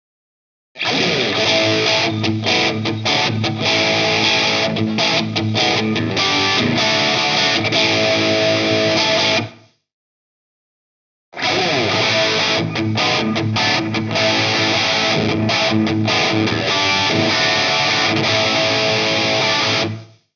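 SLX Hawk Classic 22 HSS electric guitar, with an Alnico V pickup set, being played through an amp in two passages of about nine seconds each. The playing breaks off abruptly a little before halfway, leaves a short silence, then starts again.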